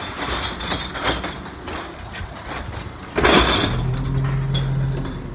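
Glass bottles and cans clinking and rattling, then a loud crash of glass a little past halfway as a load of returned containers drops into a recycling collection truck's body, followed by a steady hum from the truck.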